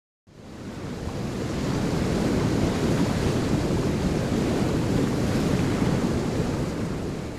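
Waterfall, a steady rush of falling water that fades in just after the start and eases off near the end.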